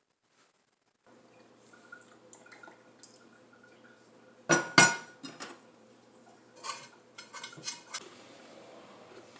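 Dishes, pots and cutlery clattering, with a burst of loud knocks about halfway through and more clinks shortly after, over a faint steady hum.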